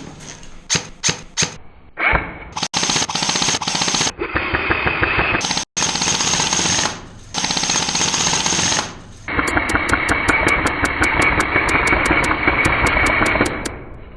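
Airsoft electric rifles firing: a few single shots, then long full-auto bursts of rapid clicking, the longest about four seconds. The full-auto fire breaks the field's semi-auto-only rule for the buildings area.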